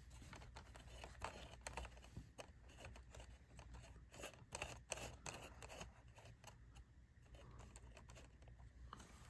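Faint handling noise from a DVD box set and its packaging: a run of quick clicks, taps and rustles, busiest in the first six seconds and thinning out after that.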